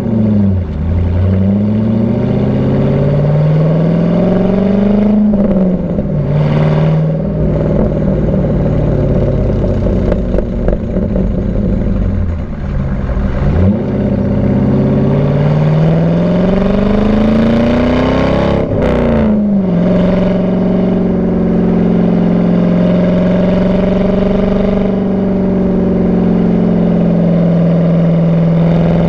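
C5 Corvette V8 running through a Borla cat-back exhaust with the catalytic converters removed, recorded right at the exhaust under way. The engine note climbs under acceleration for about five seconds and drops at a gear change. It climbs again for about five seconds, drops sharply just before the end at another shift, then holds a steady cruising drone.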